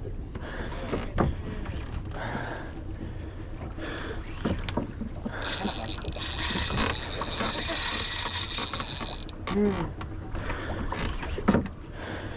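A fishing boat's engine running with a steady low rumble, with scattered knocks. A loud hissing rush comes in about five seconds in and stops sharply about four seconds later.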